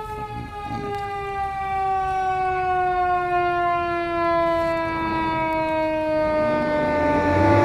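Fire engine siren winding down: one long tone sliding slowly and steadily lower in pitch. Near the end a second siren tone wavers up and down and a louder rush of noise comes in.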